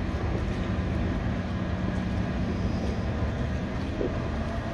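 Car ferry Kihnu Virve's engines and machinery running steadily while berthed at the quay: a low, even hum.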